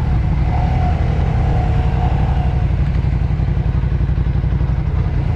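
Ducati Scrambler Cafe Racer's air-cooled 803 cc L-twin running steadily under way, a loud, even low exhaust rumble. A thin higher tone rides over it from about half a second in until about halfway.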